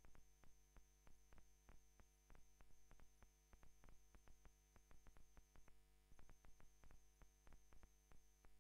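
Near silence: a faint electrical hum with faint, irregular clicks, several a second.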